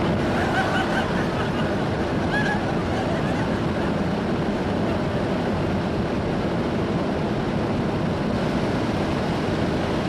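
Canister vacuum cleaner running, a loud, steady rushing noise.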